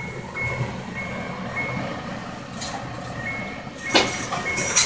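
A high, thin electronic beep sounding again and again in short, unevenly spaced pulses. A clatter of dishes comes about four seconds in.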